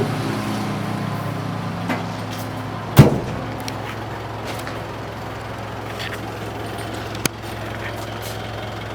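Mitsubishi Pajero Sport's 2.5-litre diesel engine idling steadily, with one loud thump about three seconds in and a sharp click near the end.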